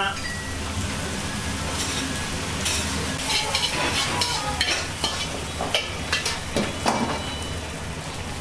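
Food sizzling in a wok over a gas burner, stirred and scraped with a metal ladle, over a steady rushing noise. In the middle comes a run of sharp metal clinks and knocks.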